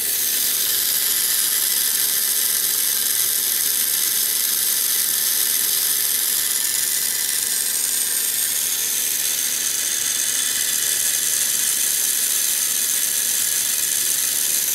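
Small blower fan on the heat sink of a homemade Peltier thermoelectric generator, running steadily with a high whir and hiss, driven by the generator's own output.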